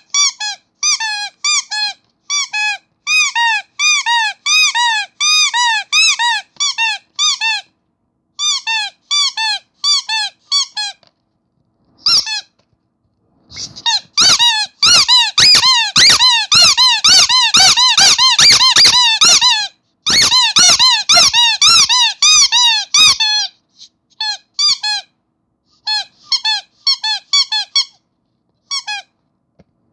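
Starfish rubber squeaky toy squeezed over and over, each squeeze a short squeak that rises and falls in pitch, two or three a second. About halfway through it is squeezed faster and louder for several seconds, with a knock under each squeak, then slows again.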